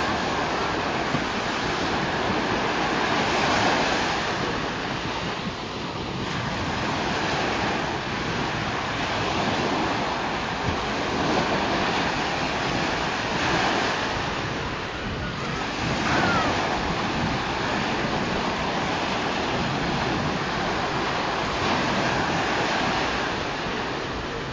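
Ocean surf breaking and washing up the beach, swelling and easing every few seconds, with wind buffeting the microphone.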